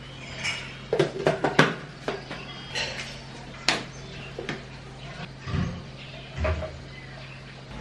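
Sharp plastic clicks and knocks from a blender jar and its lid being handled on the base, a quick cluster of them about a second in and a few more after. Then two dull thumps, as a drinking glass is set down on a stone counter. A steady low hum runs underneath, and the blender motor is not running.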